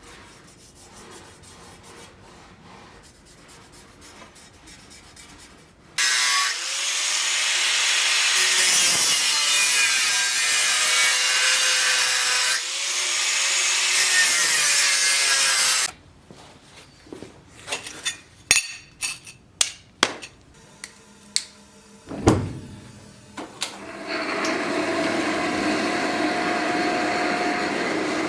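A power tool working wood, loud and dense for about ten seconds, its motor pitch dipping and recovering as it cuts. Then comes a run of sharp knocks and clicks, and a few seconds from the end a machine starts and runs steadily.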